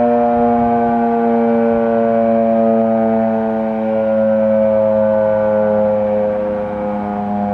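Federal Sign and Signal Model 3 electromechanical civil defense siren sounding a monthly test, one loud steady wail whose pitch sinks slowly. Other siren tones are mixed in at different pitches.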